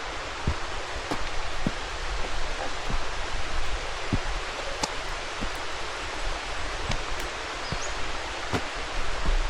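Steady hiss of rain and running creek water, with irregular sharp taps about once a second.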